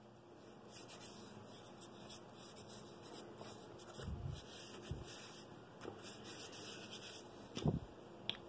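Paper rustling and rubbing as a paper pattern is handled and smoothed by hand over blue painter's tape on a wood blank, with a few soft thumps on the bench, the loudest near the end.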